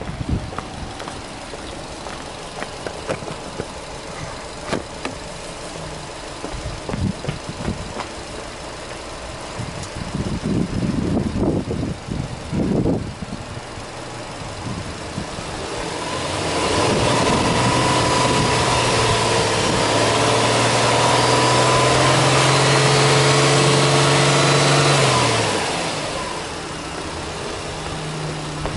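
Subaru Impreza S-GT's turbocharged flat-four engine idling with a few short surges in revs, then held at raised revs for about eight seconds, its pitch creeping slowly upward, before dropping back to idle.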